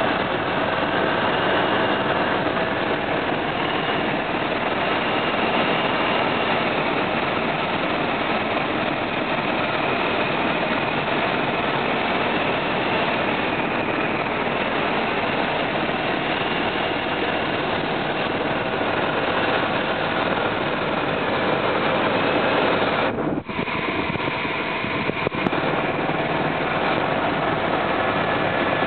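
Helicopter in flight: steady engine and rotor noise, with a brief dropout about 23 seconds in.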